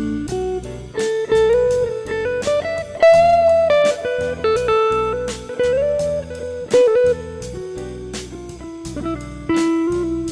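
Guitar playing slow blues: single picked notes ringing over a steady pulse, with string bends such as a rising bend about three seconds in.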